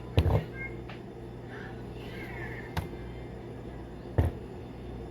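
A few short knocks of kitchenware being handled and set down on a counter: a double knock just after the start, a faint one partway through and a sharper one near the end, over a steady low hum.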